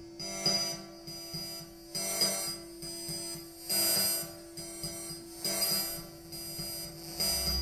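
Sparse live electronic music: a bright, buzzy, alarm-like tone pulses five times at roughly even intervals of under two seconds, over a faint steady hum.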